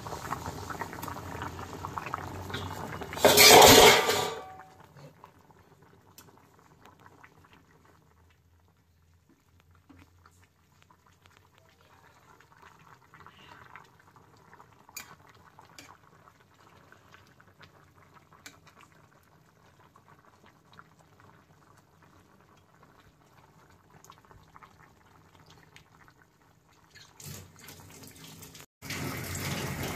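Chicken stew bubbling at a boil in a pan, with a metal spatula clinking and scraping against the pan as it is stirred. A loud clatter comes about three and a half seconds in; most of the rest is much quieter, with only faint ticks.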